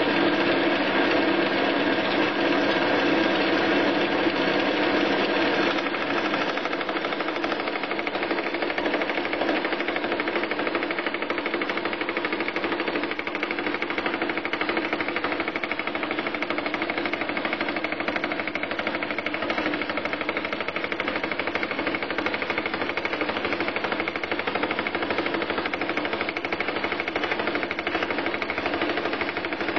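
Fly cutter spinning at 760 RPM in a lathe chuck, cutting a tooth space in an aluminium gear blank fed from the bottom up on a vertical mill slide: a loud, steady run of rapid, even cutter strikes.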